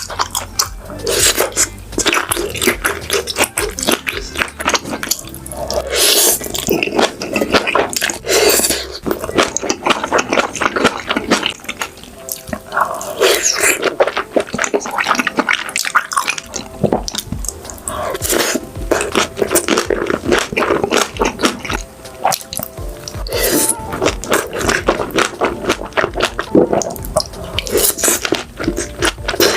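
Close-miked eating of beef large intestines: continuous wet chewing, squishing and smacking, with dense clicky mouth sounds throughout.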